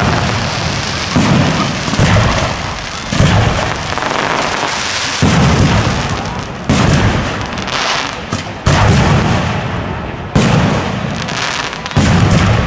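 Aerial firework shells bursting one after another: about ten loud booms, one every second or two, each dying away in a low rumble.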